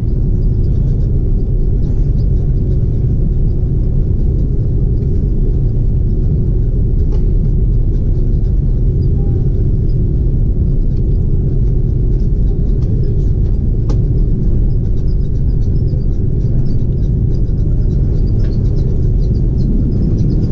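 Steady low rumble inside an Airbus A330 cabin as the airliner taxis, its engines at low thrust and its wheels rolling on the taxiway, with a steady hum over it.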